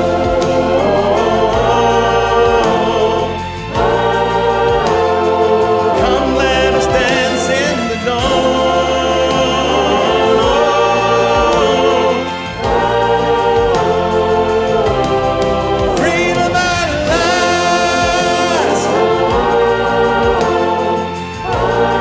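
Mixed choir of men and women singing sustained chords over instrumental accompaniment with a steady bass, in phrases of about two seconds separated by short breaths.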